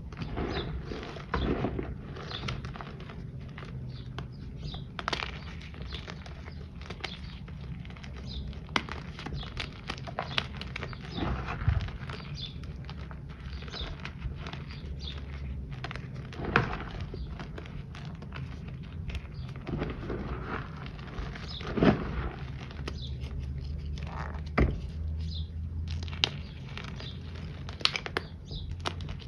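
Hands squeezing and crumbling handfuls of loose powder and soft chunks of a powder reform: a run of soft crunches and crackles, with a few louder crunches scattered through it, over a low steady hum.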